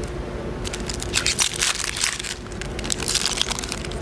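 Foil trading-card booster pack wrapper crinkling as it is handled and opened, in two bursts of crackle: one about a second in and another around three seconds in.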